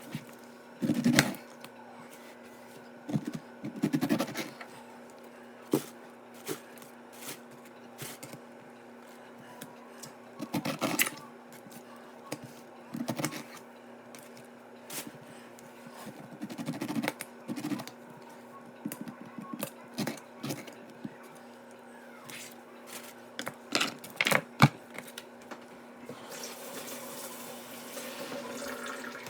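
Kitchen food preparation: scattered knocks, scrapes and clatters of fruit and a knife being handled on a counter, with a tap running near the end.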